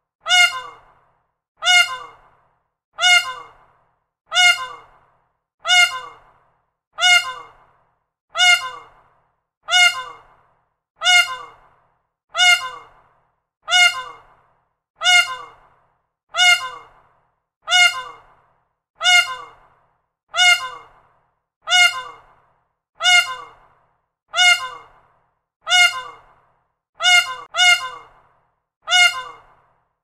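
Peacock calling again and again at an even pace, one short call about every 1.3 seconds, each starting sharply and dying away quickly. Near the end two calls come close together.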